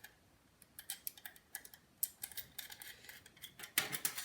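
Small screws being unscrewed with a precision screwdriver: a run of light, irregular metal ticks and clicks, several a second, getting louder and busier near the end.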